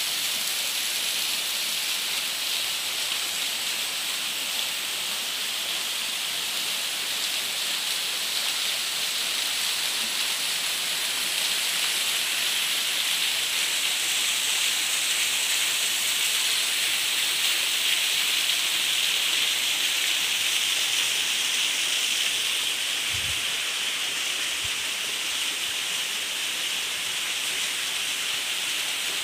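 Small waterfall pouring onto rocks, a steady rushing hiss of falling water that swells a little in the middle.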